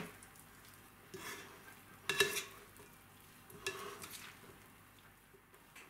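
A spoon stirring a dressed vinegret salad of sauerkraut, diced beets and potatoes in a bowl: four short, wet, scraping strokes about a second apart.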